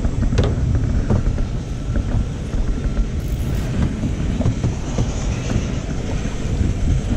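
A steady low rumble with a few light knocks.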